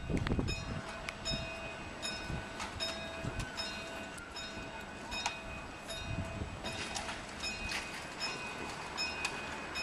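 Level crossing warning alarm sounding a repeating electronic tone pattern while the barriers come down, warning of an approaching train. A brief low rumble on the microphone at the start.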